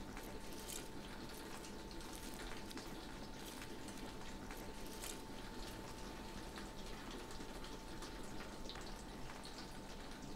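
Quiet room tone: a steady hiss with a faint thin hum, and scattered faint ticks.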